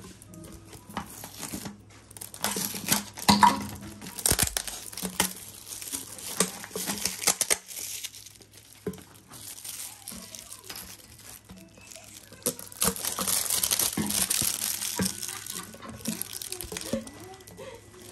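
Empty plastic PET water bottles crinkling as they are handled and their plastic labels peeled and torn off, in three bouts of crackling. Small clicks and knocks of bottles and caps on the counter come in between.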